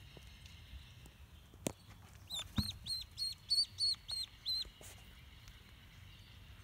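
Five-week-old dwarf duckling peeping: a run of about nine high peeps, roughly four a second, each arching up and down in pitch, starting about two seconds in. A couple of sharp clicks come just before them.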